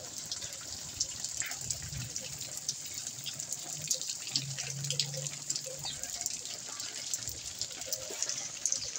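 Heavy rain pouring onto paved ground: a steady hiss full of small splashes, with runoff streaming down from a roof edge and splattering on the pavement.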